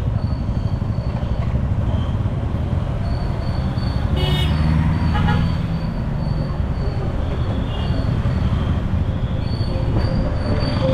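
Steady low rumble of a vehicle travelling along a road, with a short horn toot about four seconds in and a fainter one about a second later.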